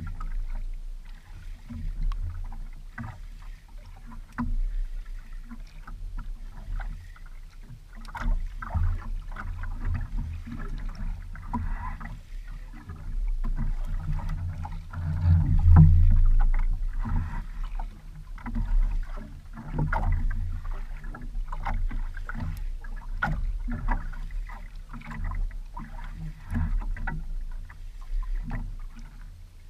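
Water lapping and knocking against the hull and bamboo outrigger of a small outrigger boat rocking on the sea, a low rumble broken by irregular knocks and splashes, with a louder surge about halfway through.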